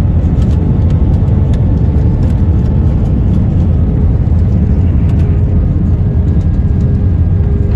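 Airliner cabin noise as the jet rolls along the runway after landing: a steady, loud low rumble of the engines and wheels, with a faint hum underneath.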